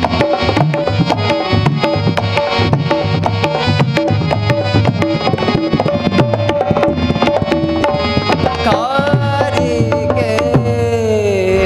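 Instrumental interlude of folk music: harmonium holding a melody over fast tabla and dholak strokes. A singing voice with gliding pitch comes in over it in the last few seconds.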